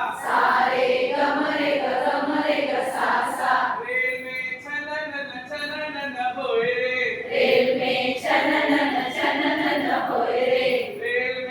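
Unaccompanied group singing of a Hindi action song, the sung lines alternating between a group of voices and a single leading voice.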